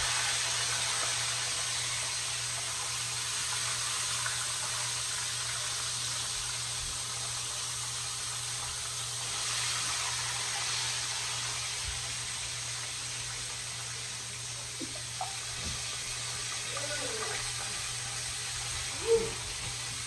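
Whole battered red snapper frying in hot oil in a cast iron skillet: a steady sizzle, with a few faint knocks and a brief louder sound near the end.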